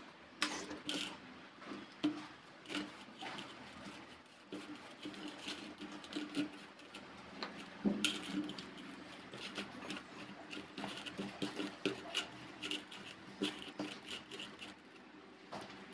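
Fingers mixing a thick, wet spice paste in a stainless steel plate: quiet squishing and scraping, with irregular light clicks against the metal.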